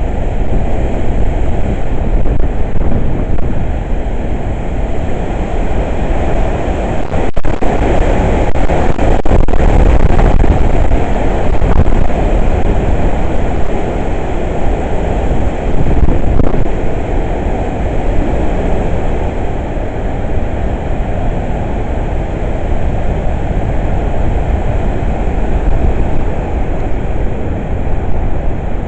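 Hurricane wind blowing hard across the microphone in gusts, strongest about a quarter to a third of the way in.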